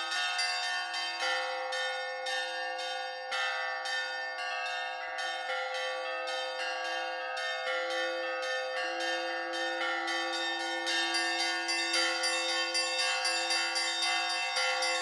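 Church bells ringing: a peal of several bells at different pitches, higher bells struck in quick succession over lower bells whose tones keep ringing.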